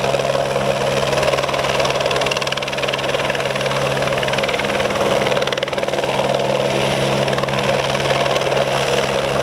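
Eurocopter AS350 A-Star helicopter hovering in place: a steady, even sound of main rotor and turbine that holds without change.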